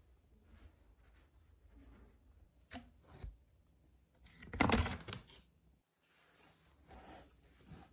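Handling noises as toy horses are moved by hand in a cardboard stable: soft rustling, a sharp tick about three seconds in, and a louder brushing, rustling scrape a little past the middle.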